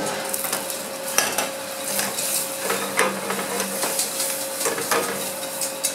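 A spatula stirring a butter-and-flour roux in a stainless-steel saucepan, with irregular scrapes and knocks against the pan. Under it there is a light, steady sizzle as the flour cooks in the melted butter.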